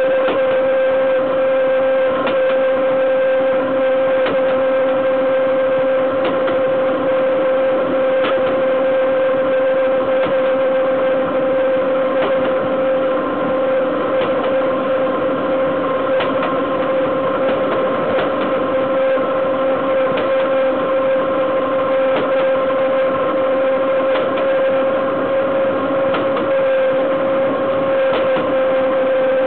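Train wheels rolling fast on the rail, heard right beside the bogie: a loud steady rolling noise carrying a constant whining tone, with scattered sharp clicks and knocks from the wheels running over the track.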